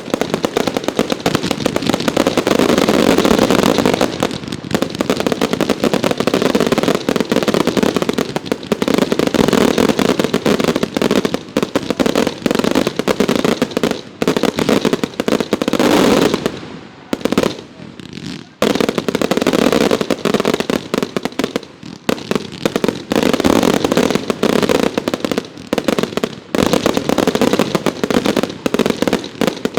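Consumer fireworks going off in rapid succession: a dense, continuous barrage of bangs and crackle, with a brief lull a little past halfway.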